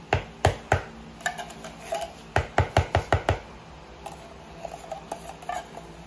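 Metal spoon scraping and knocking against the inside of a tin can of condensed milk, scooping out the last drops: a series of sharp clicks, with a quick run of about six about two and a half seconds in.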